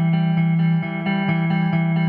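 Electric guitar played through a Hughes and Kettner Tubemeister 18 valve amp head: a low note rings on while higher notes are picked over it, about four a second, in a steady repeating riff.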